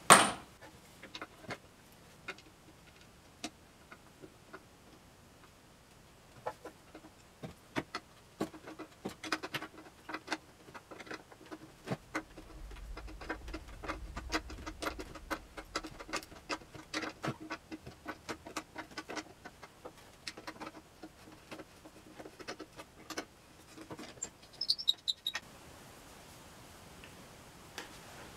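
Light, irregular clicks and taps of tools and wooden chair parts being handled, with a sharp knock at the very start.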